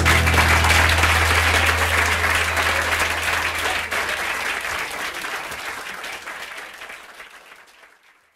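Audience applauding after the song, the clapping fading out gradually until it stops just before the end. A low note rings under it for the first few seconds.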